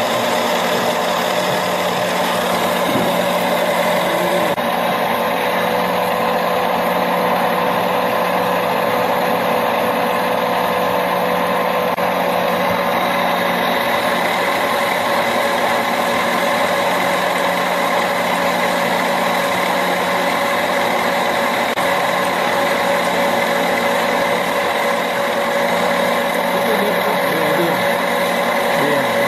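Gear hobbing machine cutting teeth into a steel pump shaft gear, running steadily with a constant mechanical hum and whine. Under it is the even hiss of cutting oil flooding the cut.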